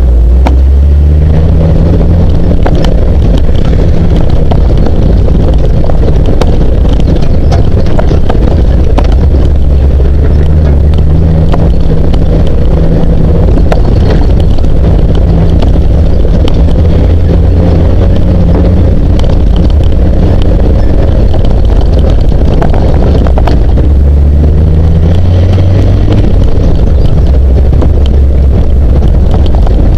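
Classic Jeep CJ7 engine running at low trail speed, its note shifting a few times as the throttle changes, with frequent knocks and rattles as the Jeep works over the rough dirt track.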